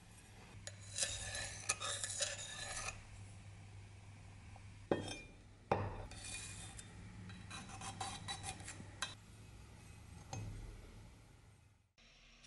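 Steel cleaver blade being handled and moved against a wooden work surface: scraping and clinking in two spells, with a few sharp knocks as it is set down.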